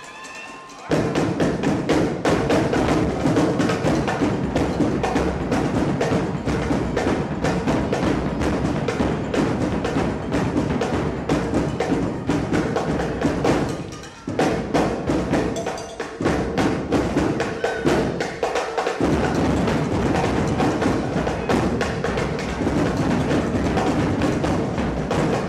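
Loud, fast percussion-heavy music with driving drums, starting abruptly about a second in, with a few brief breaks past the middle.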